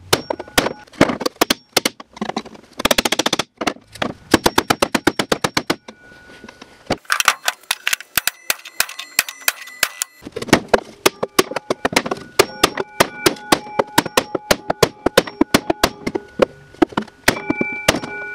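Hammer blows on a wooden block held against a snowmobile's bent aluminum bulkhead to straighten it, with the metal ringing after each strike. Quick runs of rapid blows alternate with a steadier series of strikes, several a second.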